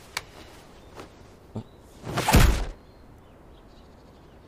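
A heavy thud about two and a half seconds in, an impact sound effect in an anime fight scene, with a couple of faint knocks before it.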